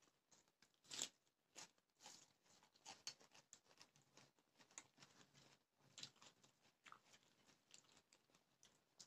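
A person chewing and crunching food in quick, irregular bites, with a sharper crunch about a second in.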